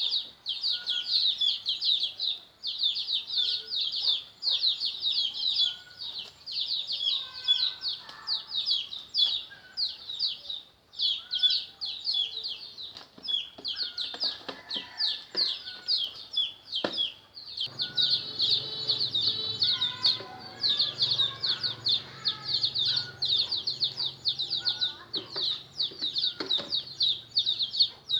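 A brood of chicks peeping rapidly and continuously in high, piercing cheeps, with occasional lower calls and a few sharp knocks in the middle.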